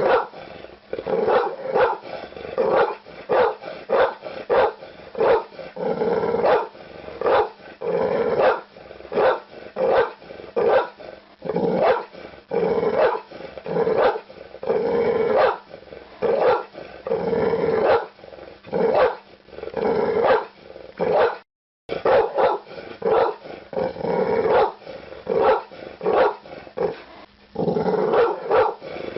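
Pit bull barking over and over, sharp barks coming about one to two a second. The barking breaks off for a split second about two-thirds of the way through.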